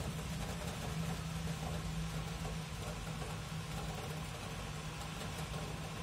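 Steady rain falling, with a steady low hum underneath that weakens about four and a half seconds in.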